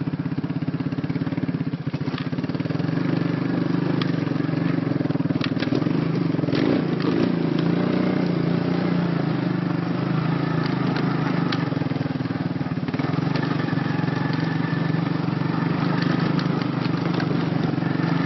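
Quad bike engine running at steady low revs, with a brief wavering in pitch about seven seconds in.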